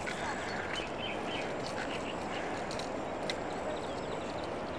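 Steady outdoor background hiss with faint bird chirps and a few light clicks.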